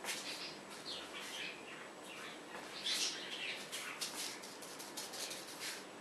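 A paintbrush dabbing and scratching on canvas in short, irregular strokes, the loudest about three seconds in.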